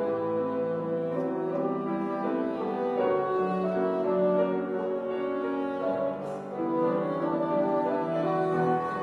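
Bassoon and piano playing a classical duet, the bassoon carrying a melody of changing notes over the piano accompaniment.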